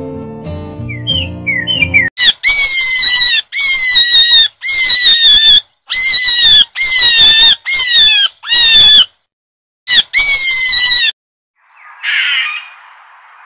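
Loud squawking calls, repeated in quick runs of several short notes with brief gaps between the runs, after a couple of seconds of light background music. Near the end comes a short, rough scratchy noise.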